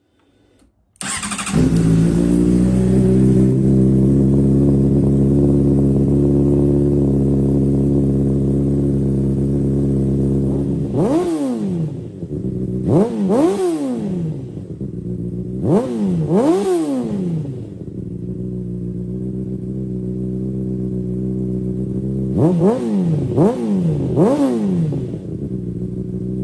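Honda CBR600RR inline-four engine through an aftermarket exhaust, starting up about a second in and idling steadily, then revved in short sharp throttle blips, singly, in quick pairs and in a run of three, settling back to idle between them.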